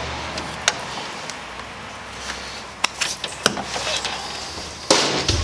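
Gloved hands working a ground wire at an open breaker panel: rustling handling noise with a few sharp light clicks, and a louder scuffle near the end.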